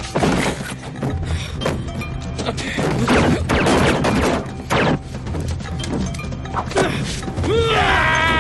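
Fight sound effects: a run of punches, thuds and crashes over tense background music, with a man shouting near the end.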